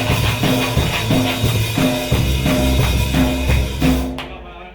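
Live punk rock band playing at full volume, with driving drums and guitars. The playing cuts off suddenly about four seconds in.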